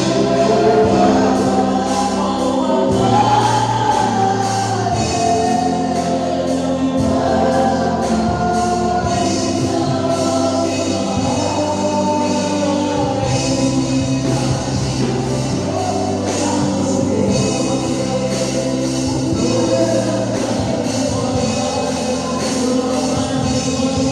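Gospel music: a choir singing over instrumental backing with sustained bass notes and a steady beat.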